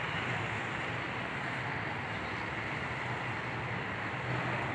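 Steady background traffic and engine noise with a low hum, unchanging and without any distinct event.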